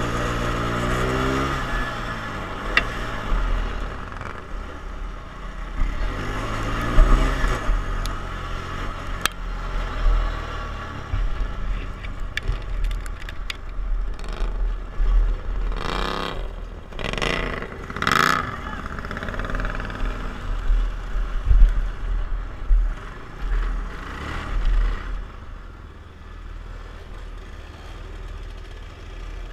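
Racing ride-on lawn mower engine heard from onboard, revving and easing off with its pitch sliding down, then several loud surges midway. It drops to a quieter low-speed run near the end as the mower slows and parks.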